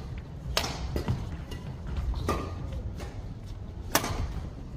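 Badminton rackets striking a shuttlecock in a doubles rally: three sharp hits about a second and a half apart, the last the loudest, over the low rumble of a large hall.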